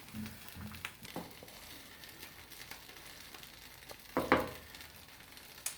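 Butter, flour and milk sauce sizzling faintly in a pan on the cooker, with a few light clicks of the stirring spoon. A brief louder sound comes about four seconds in.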